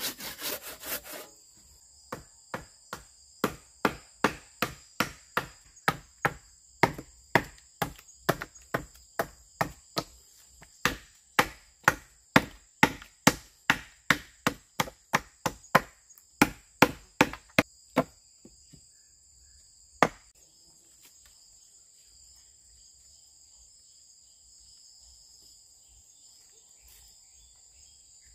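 The last strokes of a hand saw, then a long run of sharp chopping strokes on wood, about two to three a second, that stop after about eighteen seconds with one last stroke a couple of seconds later. Steady high-pitched cricket and insect chirring carries on throughout.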